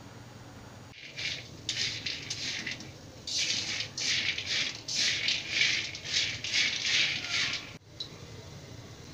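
Peanuts roasting in a metal kadai, rattling and scraping against the pan in a quick run of strokes as they are stirred. The rattling stops abruptly near the end.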